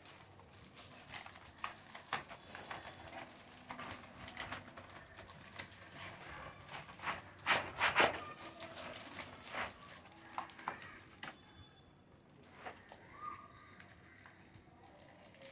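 A keyboard's cardboard box and clear plastic packaging being handled and pulled apart: irregular crinkles, scrapes and light knocks, loudest in a cluster about seven to eight seconds in.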